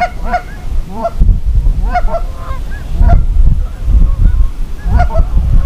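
Canada goose honks and clucks, several overlapping at irregular intervals, over a low rumble of wind on the microphone.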